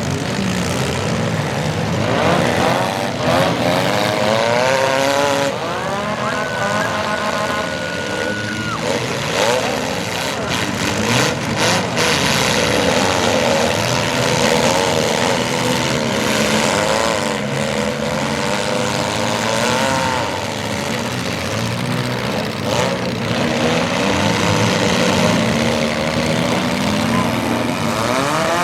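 Several front-wheel-drive demolition derby cars with engines revving, the pitches rising and falling as they accelerate and reverse, with a cluster of sharp crashes of car hitting car about ten to twelve seconds in. A steady high tone, like a horn, is held for about two seconds.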